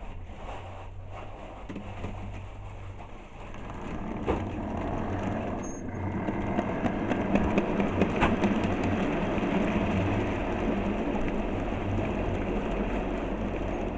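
A heavy vehicle approaching. Its noise builds from about four seconds in and then holds steady and loud over a low hum.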